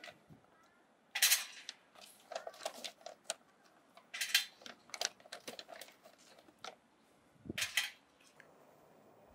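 Charcoal briquettes being lifted from a bag and placed into a metal chimney starter with tongs: a scattered run of light clinks and knocks, with three louder rustling bursts as the hand goes into the bag.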